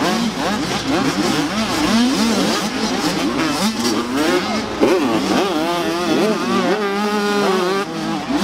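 Several supermini motocross bikes racing together, their engines revving up and falling back over and over in overlapping rising and falling whines, over a steady drone.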